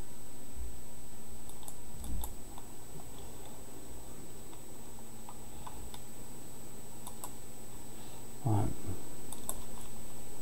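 A few scattered clicks of a computer keyboard and mouse, with a dull thump about two seconds in, over a faint steady high whine.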